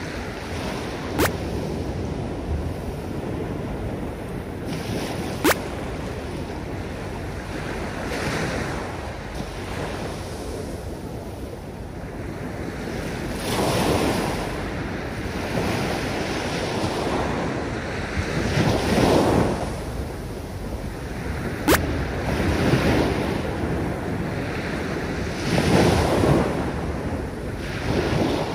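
Small waves breaking and washing up a coral-sand and pebble beach, surging about every five seconds over a steady rush. Three sharp clicks stand out, about a second in, at about five seconds, and again about three-quarters of the way through.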